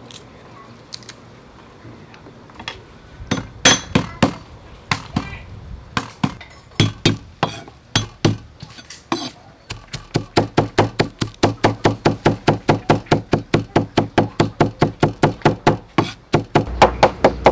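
A steel cleaver chopping garlic cloves on a wooden cutting board. After a quiet start come scattered strokes, then from about ten seconds in a steady run of about four chops a second.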